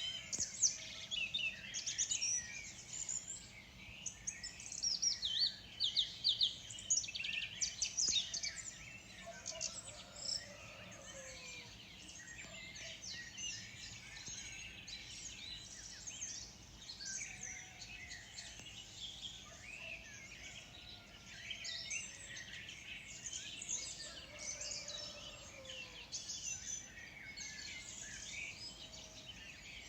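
Morning birdsong: several small birds chirping and trilling together, busiest in the first ten seconds or so and sparser after, with a few lower whistled notes under a faint steady outdoor hiss.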